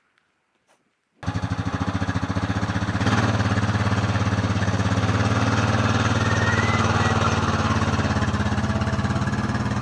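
An engine running steadily with an even, pulsing beat. It starts suddenly about a second in and gets louder about three seconds in.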